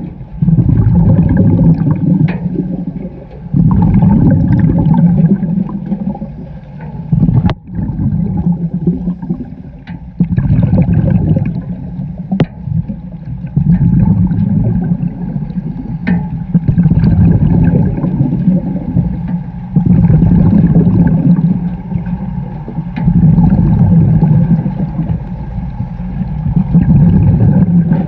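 Underwater scuba breathing through a regulator: a rumbling rush of exhaled bubbles about every three seconds, with brief quieter gaps for the in-breaths.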